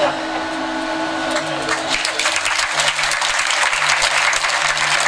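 A steady machine-like hum stops right at the start, then theatre audience applause builds from about two seconds in and carries on.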